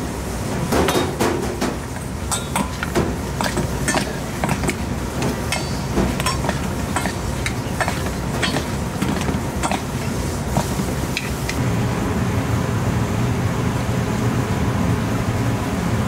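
Metal spoon clinking and scraping against a stainless steel bowl as a wet corn, shrimp and mayonnaise mix is stirred: many quick, irregular clinks. About twelve seconds in, the clinks stop and a steady low rumble is left.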